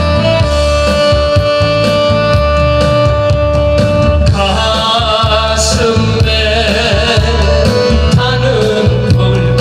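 Instrumental accompaniment with a steady beat and a long held note. About four and a half seconds in, a man's singing voice comes in, wavering with vibrato.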